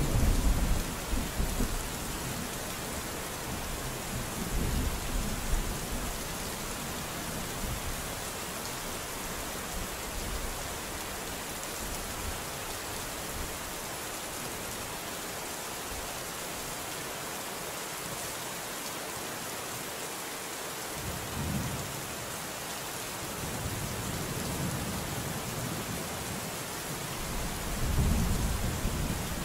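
Steady rain hissing, with thunder rumbling several times: a sharp crack right at the start that rolls on for a couple of seconds, a weaker rumble a few seconds later, and more rolls from about two-thirds of the way through, the longest near the end.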